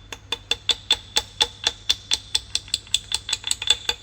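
A hand tool working on the metal of a dodgem's drive-wheel assembly: a fast, even run of sharp metallic clicks, about five a second, each with a short ringing note.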